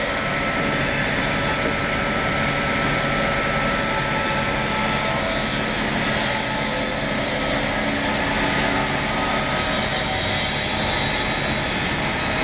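Woodworking machine running steadily while it machines timber: a continuous machine drone with hiss and a faint constant whine.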